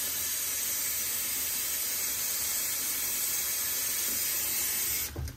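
Kitchen tap running into a sink as it fills with water, a steady hiss that cuts off abruptly near the end when the tap is turned off.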